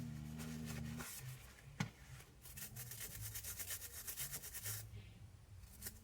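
A sharp click, then about two and a half seconds of quick, scratchy rubbing strokes, like small parts being rubbed or wiped by hand.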